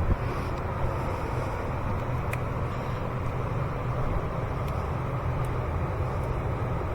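Steady low background rumble like a nearby running vehicle or traffic, with a few faint light clicks.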